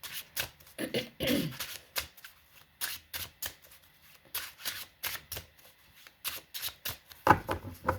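A deck of tarot cards being shuffled by hand: a quick, irregular run of card flicks and slaps, with a louder slap near the end.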